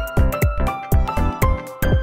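Background music with a steady drum beat and a melody.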